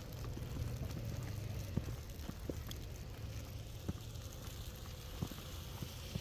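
Footsteps crunching through snow, a scatter of uneven sharp crunches over a steady low rumble.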